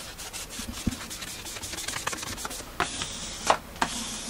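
Large sheet of light adhesive-backed paper map being laid and pressed onto a desk: quick crinkling and rustling of the paper, then a few sharper swipes near the end as it is wiped flat.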